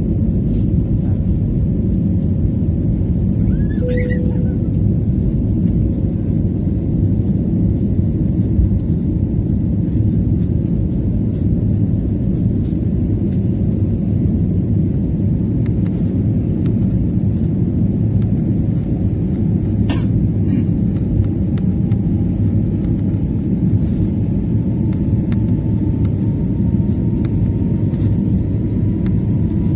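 Steady low rumble of an Airbus airliner's jet engines and rushing air, heard from a window seat inside the cabin during the climb just after takeoff. A faint rising tone creeps in during the last third.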